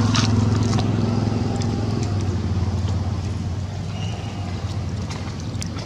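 A low, steady motor hum that slowly fades, with a few faint clicks over it.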